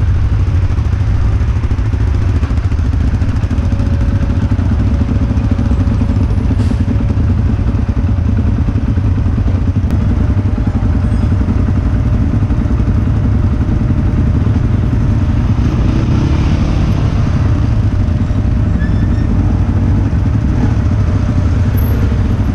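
ATV (quad bike) engines running steadily close by: a constant low drone.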